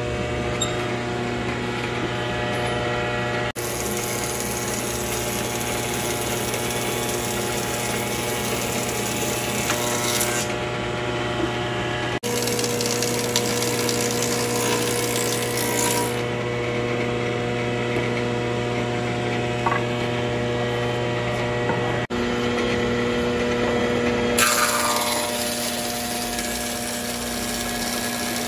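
Electric woodworking planer (3-in-1 planer-thicknesser) running with a steady motor and cutterhead hum, described as having no vibration. It is planing a board in thicknessing mode, and a dense hiss of the knives cutting wood comes and goes in long stretches over the hum.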